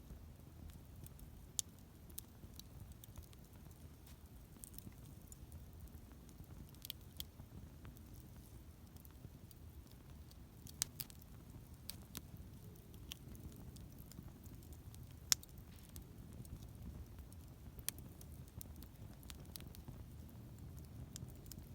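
Wood campfire crackling, with scattered sharp pops and ticks at irregular intervals over a low steady rumble.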